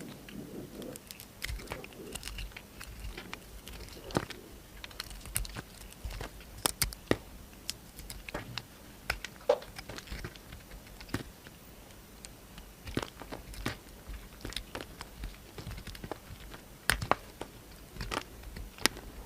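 A knife cutting into soap: irregular crisp crackles and clicks, with a few sharper snaps.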